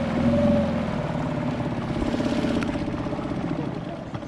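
Small outboard motor running, driving an inflatable boat across the water. Its drone pulses fast and evenly, and it fades near the end as the boat slows.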